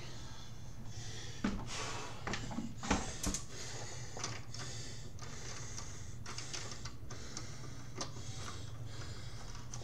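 Light clicks and rustles from someone moving about and handling things, scattered over several seconds above a steady low hum.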